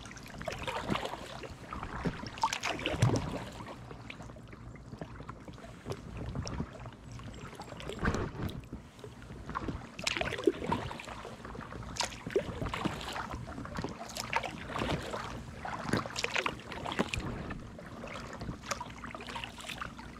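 Paddling an inflatable Challenger K1 kayak: the double-bladed paddle dips and splashes into the water in repeated strokes, roughly one every one to two seconds, unevenly spaced.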